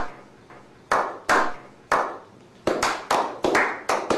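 A small group of people doing a slow clap: single sharp claps about a second apart that quicken towards the end, each with a short ringing tail.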